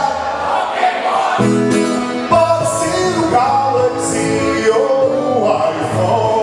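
Live acoustic guitar strummed with sung vocals.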